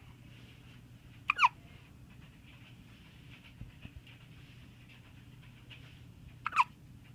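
Two short, squeaky hiccups about five seconds apart, each falling quickly in pitch.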